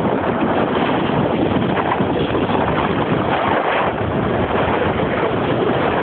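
Wind rushing over the microphone while a snowboard slides and scrapes over packed snow at speed, a steady loud rush.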